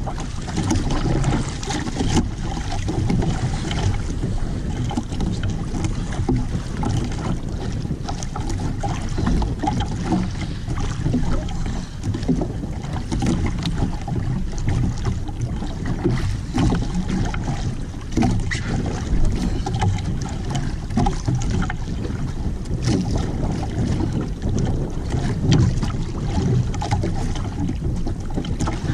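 Wind buffeting the microphone and choppy sea water slapping against the hull of a small outrigger boat, an even rushing noise broken by irregular splashes and knocks.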